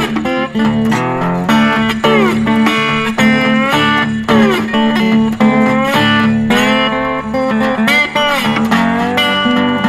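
Background music: a guitar piece with slide guitar glides over a steady bass note.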